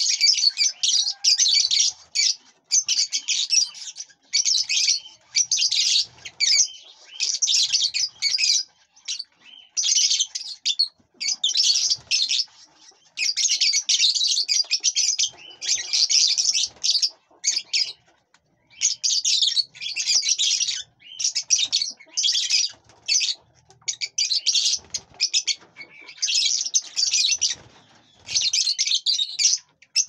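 Lovebirds chattering: busy, high-pitched chirping calls in bursts of a second or two, again and again with short pauses between.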